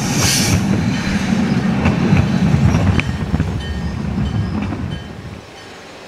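Train passing close by: a heavy, loud rumble with a few sharp clicks from the wheels and a brief hiss just after it begins. The rumble drops away about five seconds in.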